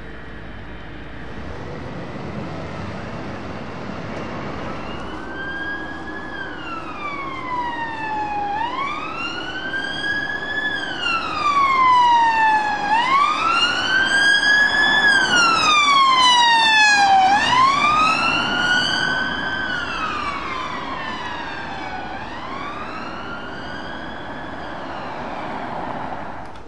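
Police car siren on a slow wail, rising and falling about every four and a half seconds, over road and engine noise. It grows loud as the car comes close and passes, then fades as it drives away.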